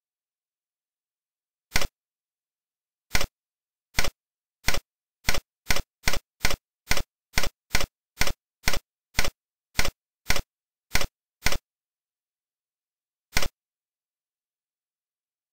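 Tux Paint's button-click sound effect, played about nineteen times as the stamp-page arrow is clicked over and over. The clicks start about a second apart, quicken to about two a second, then stop, with one last click after a short pause near the end.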